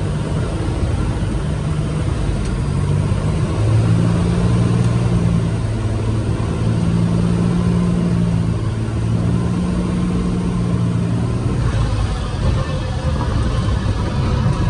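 Single-engine light aircraft's piston engine and propeller running at low power, heard from inside the cockpit as the plane rolls on a dirt strip. The low engine hum steadies through the middle and eases off about twelve seconds in.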